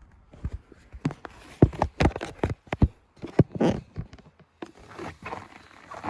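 Irregular knocks and thuds, with some rustling about halfway through and near the end.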